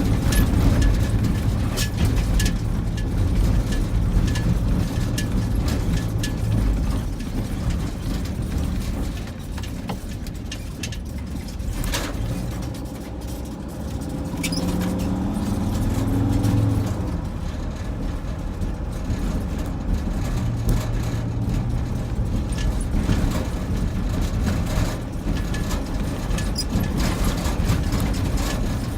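A motor vehicle running with a continuous low rumble, its pitch rising for a couple of seconds about halfway through.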